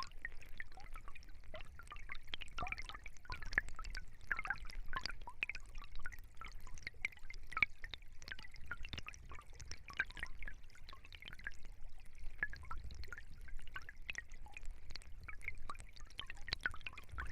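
Stream water running steadily, a dense, irregular patter of small trickles, drips and gurgles.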